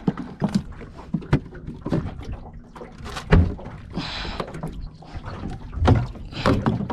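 Irregular knocks and thumps of gear being handled in a small boat, hard objects striking the hull and deck, with the heaviest thump about three seconds in and another just before six seconds.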